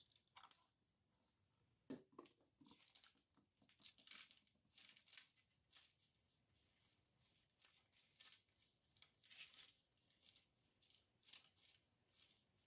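Faint, scattered rustling and crinkling as hands handle dry craft material, with a sharp click about two seconds in.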